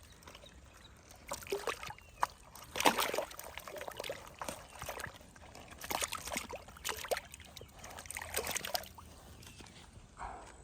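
Water splashing and sloshing in irregular bursts, several loud splashes a second or so apart.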